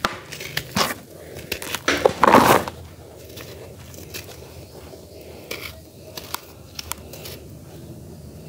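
Hands crushing and crumbling dry lumps of charcoal in a plastic tub: gritty crunches and crackles, loudest about two seconds in, then softer rustling and sifting of the powder.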